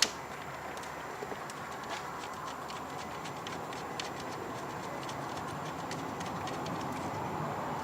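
Faint irregular light clicks of hand tools as the ignition coil's hold-down bolt is fitted and tightened, over a steady background noise.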